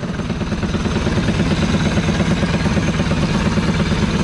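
Small single-cylinder four-stroke clone go-kart engine picking up right at the start, then running steadily at idle with a fast, even beat.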